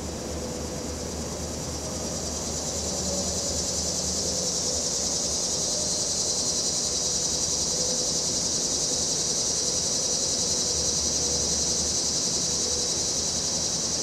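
Cicadas buzzing in a steady high chorus that swells over the first few seconds and then holds, over a low rumble of distant traffic.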